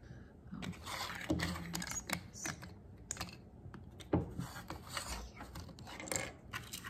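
Plastic LEGO bricks and plates clicking and rattling as they are handled and pressed together on a table: a string of irregular small clicks.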